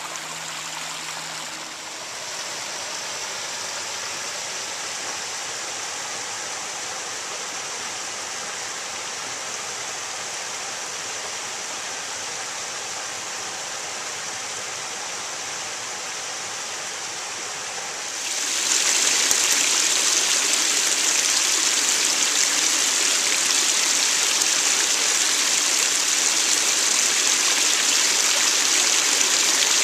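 Creek water rushing and splashing over flat stone ledges in small cascades. About two-thirds of the way through, the rush abruptly becomes louder and brighter, the sound of a small falling cascade heard close up.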